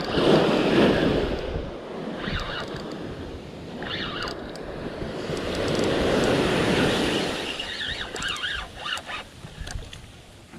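Ocean surf breaking and washing on the beach, swelling loud near the start and again in the middle, with wind on the microphone.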